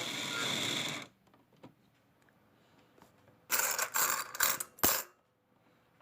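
Mini claw machine's mechanism clattering and rattling for about a second and a half, with a series of loud jangling bursts ending in a sharp clack.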